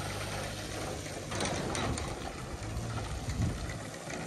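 Pickup truck towing an empty boat trailer up a launch ramp out of the water, its engine a steady low hum under the noise of water running off the trailer.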